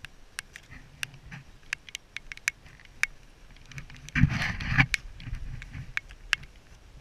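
Irregular sharp taps and clicks, typical of raindrops striking the camera, with a louder rumbling knock about four seconds in as the camera is jostled.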